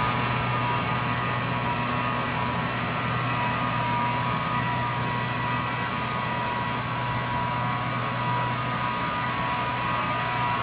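Steady electrical hum and hiss with a few faint high tones, unchanging, with no distinct event in it.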